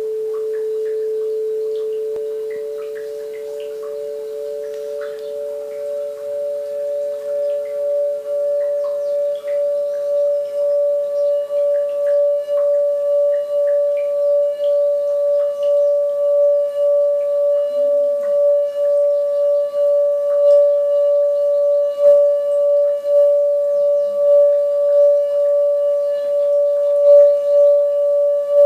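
Crystal singing bowls ringing with one long sustained tone that throbs about once a second. A second, lower bowl's tone dies away over the first several seconds.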